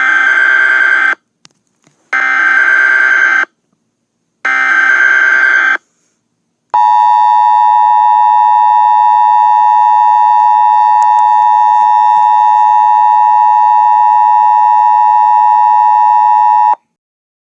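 Emergency Alert System broadcast tones. First come three SAME header bursts, each about a second long, of warbling digital data tones. Then the two-tone attention signal plays, a steady harsh dual tone held for about ten seconds that cuts off sharply.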